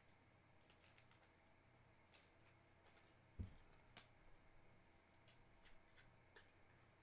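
Faint clicks and light scraping of trading cards being handled and sorted, with one soft low thump about halfway through.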